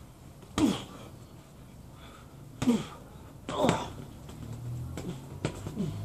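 Boxing gloves striking in a garden sparring bout: three sharp hits, about half a second in, near the middle and a second later, each with a short grunt that falls in pitch. A lighter hit comes near the end over a low hum.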